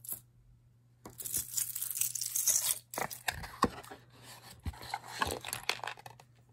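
Hands rummaging through a cardboard box of costume jewelry: a dense rustling scrape for about two seconds, then a run of sharp clicks and clinks as pieces knock together and are picked up.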